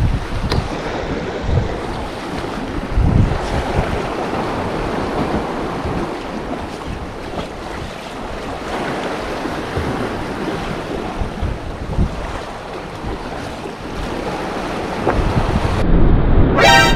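Sea waves washing against the shore, with wind buffeting the microphone. Near the end the sound cuts abruptly to a louder, brief buzz.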